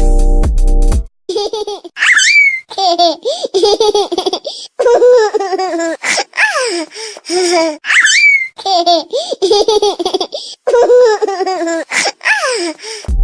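Funny laughter ringtone: a baby's high-pitched giggling laughter in short bouts with a squealing rise, the sample looping about every six seconds. A bass-heavy music ringtone cuts off about a second in, just before the laughter starts.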